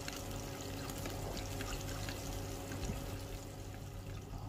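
Sliced shallots frying gently in a little oil in a nonstick pan: a soft, steady sizzle with faint small pops.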